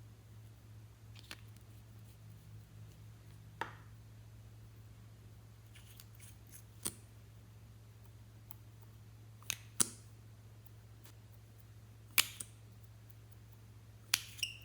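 Clear slime being worked by hand, giving sharp isolated clicks and snaps a few seconds apart, some in quick pairs, over a faint steady hum.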